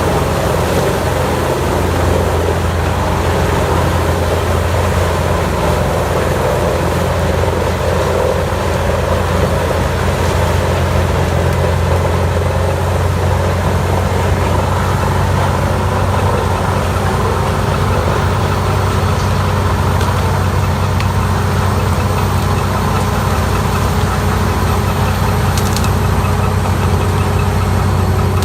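Heavy diesel engine of a large industrial wood grinder running steadily at a constant speed, with a deep hum under a dense grinding noise.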